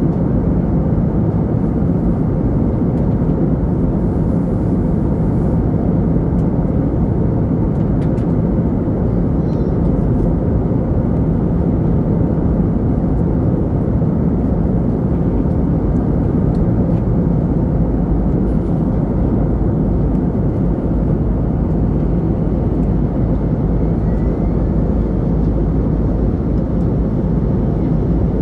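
Steady cabin noise inside an Airbus A321neo airliner: engine and airflow noise with a low hum underneath, unchanging throughout.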